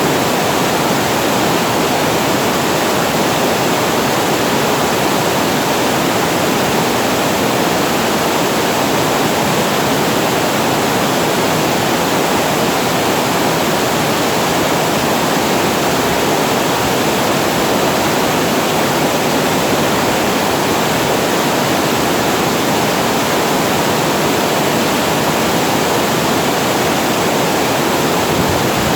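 Water pouring over a reservoir weir into the channel below, a steady, even rush of falling water that does not change.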